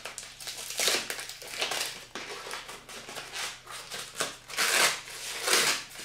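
Brown packing paper crinkling and rustling as it is unwrapped by hand, in a run of uneven rustles with louder crackles about once a second.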